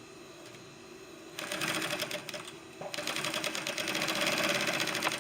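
Industrial sewing machine stitching under foot-pedal control in two runs: a short burst starting about a second and a half in, a brief pause near the three-second mark, then a longer, louder run.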